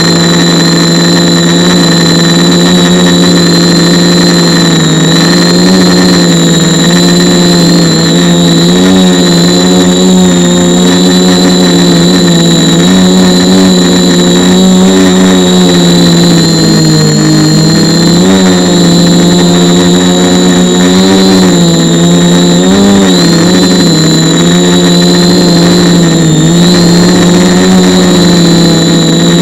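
A multirotor drone's electric motors and propellers buzzing loudly and close, as picked up by a camera mounted on the drone. The buzz holds a steady pitch that dips and rises briefly several times, with a thin high whine above it.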